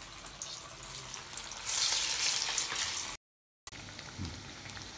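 Sweet potato vadas deep-frying in hot oil: a light crackling sizzle that surges loud for about a second and a half, cuts off abruptly, then returns softer with one dull knock.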